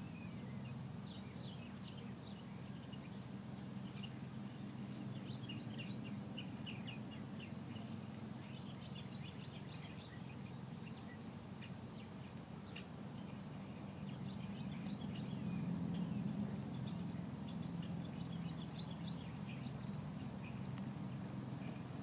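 Small birds chirping in short, quick notes over a steady low mechanical hum, with a couple of sharp, high chirps about a second in and again about fifteen seconds in.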